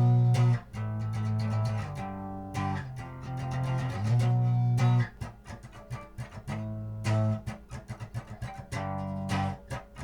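Instrumental intro music of plucked guitar over a bass line.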